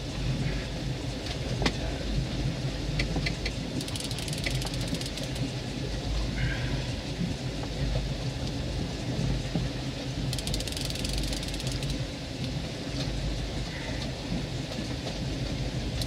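A fishing boat's motor running steadily at low speed, with wind and water noise and brief hissing stretches about four seconds in and again about ten seconds in.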